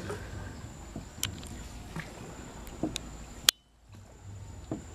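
Small rowed boat gliding through the water: soft splashing from the oars with a few sharp knocks, the loudest about three and a half seconds in, followed by a brief dropout.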